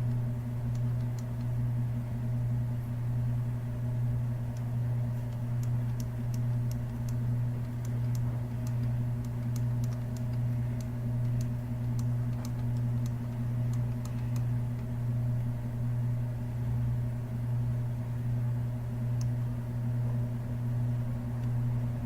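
A steady low hum that swells slightly about once a second, with scattered faint clicks of typing on a computer keyboard.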